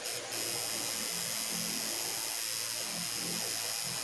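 Electric tattoo machine buzzing steadily, stopping for a moment just after the start and then running on without a break.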